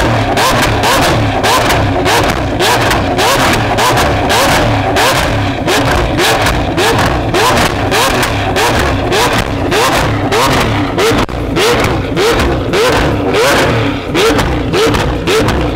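Lamborghini Aventador SV's V12 engine blipped again and again, about twice a second, each rev rising quickly and falling, with constant popping and crackling from the exhaust.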